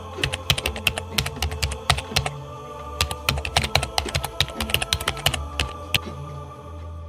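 Fast typing on a Golden Field blue-switch mechanical keyboard: rapid, irregular clicky keystrokes that stop about six seconds in. Quiet background music plays underneath.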